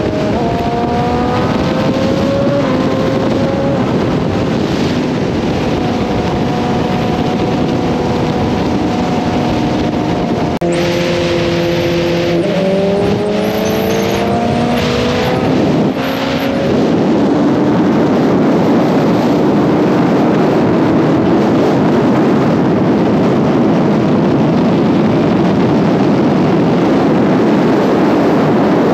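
Sport motorcycle engines at speed, heard on board a BMW S1000RR. The revs climb and step up through gear changes in the first few seconds, and again from about a third of the way to just past halfway, all under a constant rush of wind and road noise. The last part is mostly a steady, louder rush of wind.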